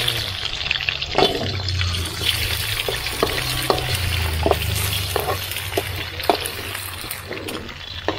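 Pickled garlic sizzling in a hot wok while a metal spatula stirs it, knocking and scraping against the pan at irregular moments.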